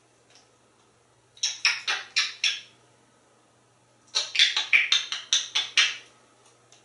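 African grey parrot giving two runs of short, harsh, repeated calls, about five and then about nine in quick succession, some four or five a second, mimicking an animal.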